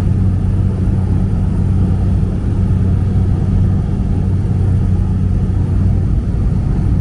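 Inside the cabin of a small propeller plane in flight: a steady engine and propeller drone, a low hum with an even pitch and level.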